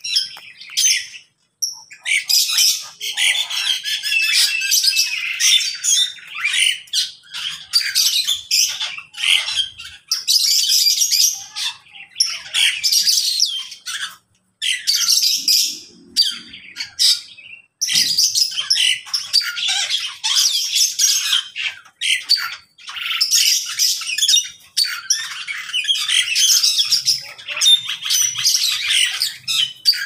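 A mixed flock of aviary birds chirping and squawking together. The calls overlap densely and drop out briefly a few times.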